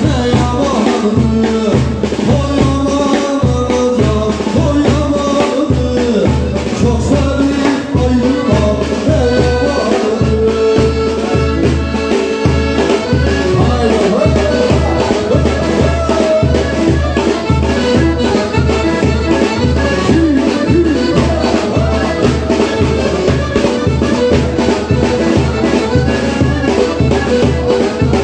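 Live wedding band playing a loud Turkish halay dance tune: a heavy, steady drum beat about twice a second under an amplified melody, with a man singing into a microphone.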